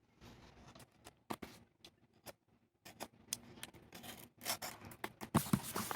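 A small cardboard box being opened by hand, making scattered light clicks, scrapes and rubs of packaging. These become busier and louder in the second half.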